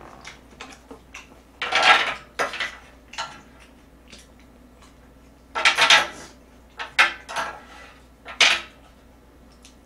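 Metal eating utensils clattering and scraping against a tabletop grill plate and dishes while food is picked up and moved, in several short bursts. The loudest come about two seconds in and around six to seven seconds in.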